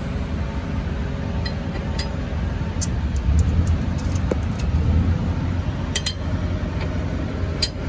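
Metal hand tools clinking and tapping against engine parts, a handful of light sharp clicks over a steady low rumble.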